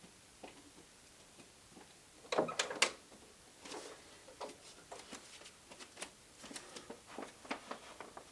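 Irregular light clicks and knocks of small objects being handled, with a louder cluster of knocks about two and a half seconds in.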